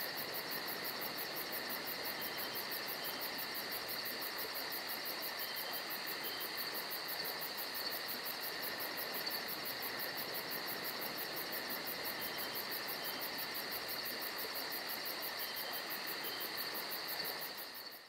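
Electronic fixed-media music: a steady hiss with held high tones and a fast, even pulsing at the top, dying away at the very end.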